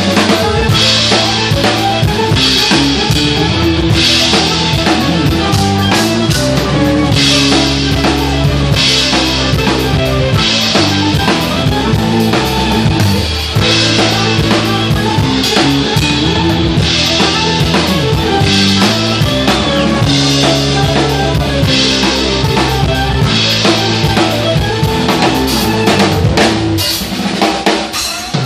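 Santafe drum kit with Meinl cymbals played live in a steady band groove, with bass drum, snare and cymbals, over the band's pitched instruments.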